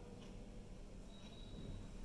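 Quiet room tone: faint steady hiss and low hum, with a faint thin high tone for about half a second a little after one second in.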